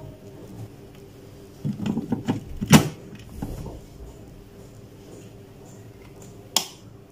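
Plastic power adapter pushed into a power strip socket: a few knocks and a sharp clunk about two and a half seconds in. Near the end comes a single sharp click as the strip's red rocker switch is pressed.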